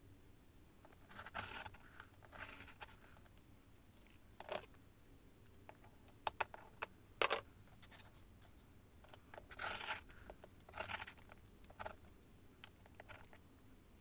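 Fiskars rotary cutter rolling through layered T-shirt fabric on a cutting mat in several short scraping strokes, with a few sharp clicks and taps from the plastic ruler and cutter being set down and moved.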